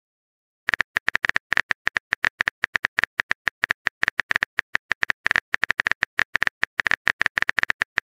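Simulated phone-keyboard typing sound effect: rapid, uneven clicks, several a second, starting just under a second in.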